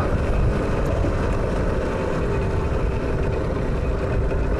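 Rieju RS3 NKD 50cc two-stroke single-cylinder engine running at steady revs while riding, its note holding an even pitch. Wind rushes over the microphone beneath it.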